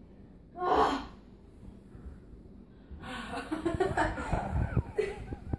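A person's voice making breathy, non-word sounds: one sharp breath or gasp just under a second in, then a few seconds of breathy, muffled vocal noise from about three seconds in, with light low bumps.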